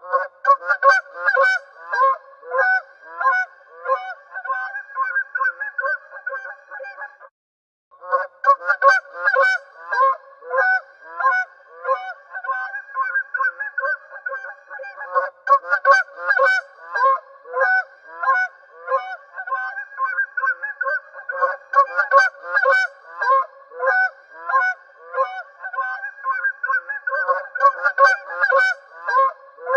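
A flock of geese honking, many calls overlapping in a continuous chorus that breaks off briefly about seven seconds in.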